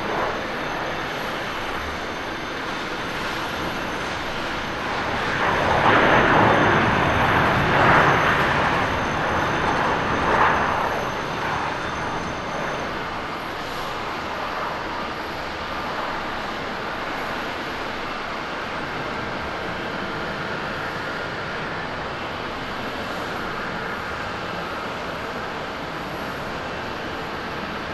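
Airbus A350-1000's Rolls-Royce Trent XWB-97 turbofans running as the airliner rolls out and slows after landing, growing loudest a few seconds in and easing back after about eleven seconds to a steady, lower taxi hum.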